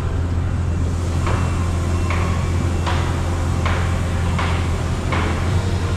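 Hammer blows on a construction site: six evenly spaced strikes about three-quarters of a second apart, starting about a second in, over a steady low hum.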